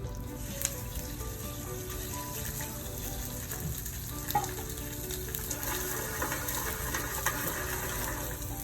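Chicken searing in butter in a hot pan beside frying onions and portobello mushrooms: a steady sizzle, with a sharp click about four and a half seconds in.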